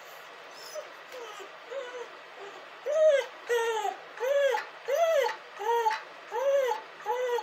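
A dog crying in short whines that rise and fall in pitch, faint at first, then louder and regular from about three seconds in, roughly one and a half cries a second.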